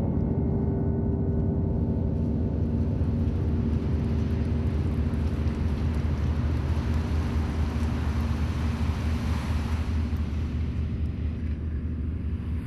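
Low droning film score: a heavy bass rumble with sustained low notes, and a hiss that swells in the middle.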